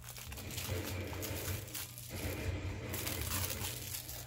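Plastic shrink wrap on a Blu-ray/DVD case crinkling as it is pulled and peeled off by hand, a steady run of small crackles.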